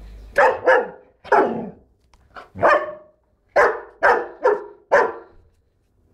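German Shepherd dog barking: about eight loud, deep barks in uneven bursts, ending in a quick run of four.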